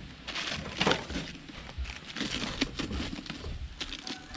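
Thin plastic sheet crinkling and rustling in irregular bursts as it is handled, loudest about a second in, while the strap holding it over a cooked pot is pulled off.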